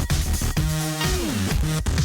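Electronic dance music with a steady beat and synth lines, one of which slides down in pitch just after a second in.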